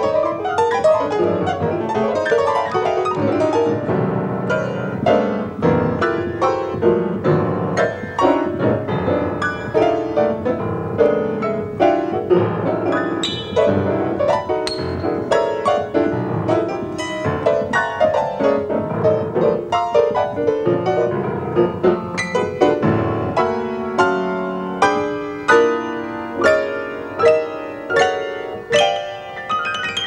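Solo grand piano played in free-jazz style: fast, dense runs and clusters of struck notes. In the last few seconds these give way to heavier, more spaced-out accented strikes.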